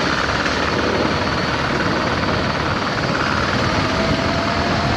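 Motorcycle engine running steadily as the bike rolls slowly forward, heard close up from a mount on the bike.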